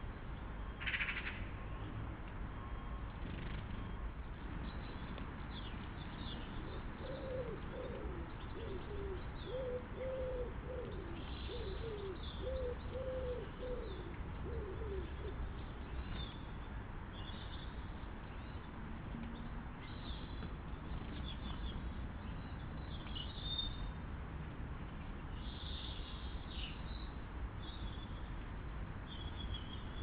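Small birds chirping with short high calls, scattered throughout. From about seven to fifteen seconds in, a pigeon coos in a run of low, repeated notes, over a steady low rumble.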